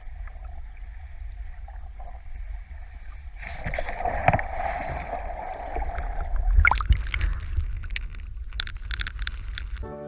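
Water gurgling and sloshing over a steady low rumble, with a louder churning stretch about three and a half seconds in. A run of sharp splashy clicks follows in the second half.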